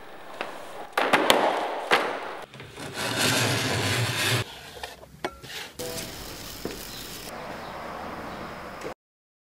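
Hand tools scraping and rubbing on a surfboard: a run of separate noisy strokes with scattered clicks and knocks, cutting off suddenly near the end.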